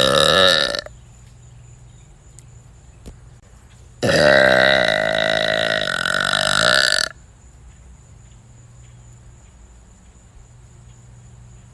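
A person burping deliberately, twice: a short burp that ends just under a second in, then a long, drawn-out burp of about three seconds that starts about four seconds in.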